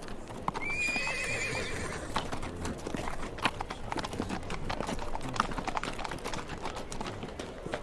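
Horses' hooves clattering as they move off at speed. One horse neighs about half a second in, a wavering call lasting over a second.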